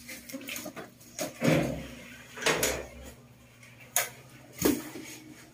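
A handful of sudden knocks and bumps, about five over a few seconds, the sharpest about four seconds in.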